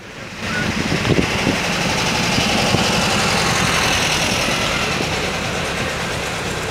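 A vehicle engine running steadily, coming up about half a second in.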